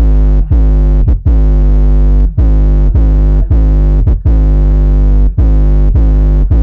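Bass-heavy electronic music played very loud through a Bull Audio car subwoofer, the deep bass hits overdriving the recording. Each hit starts with a quick downward swoop, and short gaps fall between hits every half second to a second.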